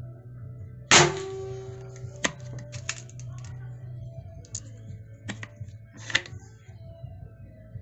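A pre-charged pneumatic air rifle firing once about a second in: a sharp crack with a short ring. Several lighter clicks and knocks follow, over background music.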